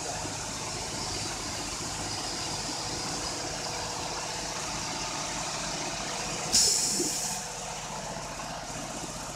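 Vacuum pump of a vacuum emulsifying mixer running steadily, with a short, loud hiss about six and a half seconds in.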